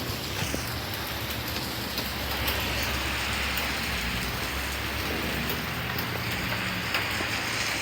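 Heavy rain falling steadily, a dense even hiss of drops splattering on surfaces, with scattered sharper drop ticks.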